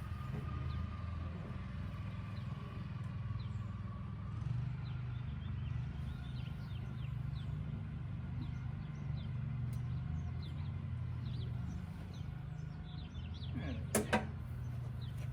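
Steady low hum with faint bird chirps over it. About fourteen seconds in come two sharp clicks close together, the H11 headlight bulb's wiring connector being worked and snapped on.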